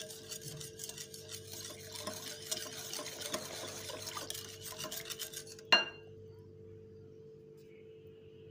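Wire whisk beating plain yogurt smooth in a bowl: a fast, busy run of light clicks and wet scraping that stops about six seconds in with one sharp knock. A steady low hum runs underneath.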